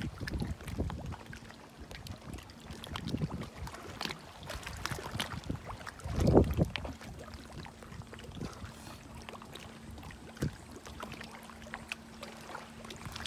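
Shallow seawater lapping, with small splashes and wind rumbling on the microphone. The wind is strongest in a low burst about six seconds in.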